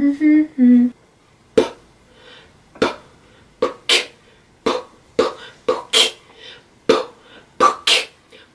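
A young woman's voice finishing a hummed tune, then, about a second in, switching to amateur beatboxing: sharp mouth-made pops and clicks in an uneven beat.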